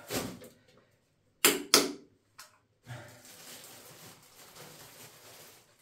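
Two sharp knocks in quick succession about a second and a half in, a faint click, then a soft rustle of handling.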